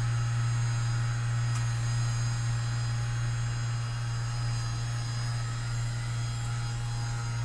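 Handheld electric massager running with a steady low hum as it is worked over the patient's muscles to relax them.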